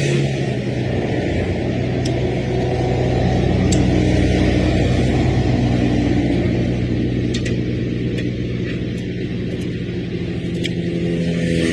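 A motor engine running steadily, its pitch and loudness rising a little about three seconds in and settling back, with a few light ticks.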